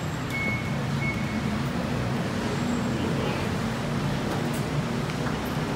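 Steady low rumble of traffic and hum, with two short high electronic beeps about half a second and a second in.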